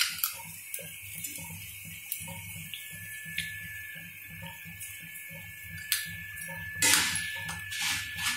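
Corn flakes frying in a black kadai over a gas flame: a steady sizzling hiss with scattered sharp clicks. From about seven seconds in, louder scraping and rustling as the flakes are stirred in the pan. A faint steady high tone joins about three seconds in.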